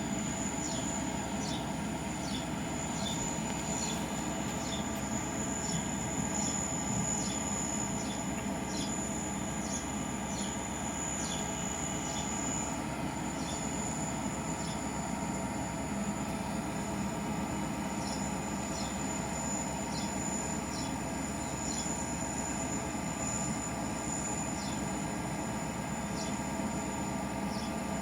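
Union Pacific train rolling past, a steady rumble of wheels on rail with a thin high squeal held over it and short high squeaks every second or so.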